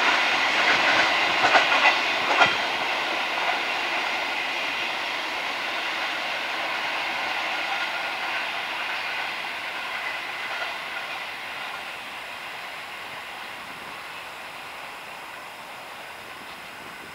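Wheels of a loaded narrow-gauge cattle train's wagons running over the track as the last wagons move away. There are a few sharp clicks in the first couple of seconds, then a steady rumble that slowly fades.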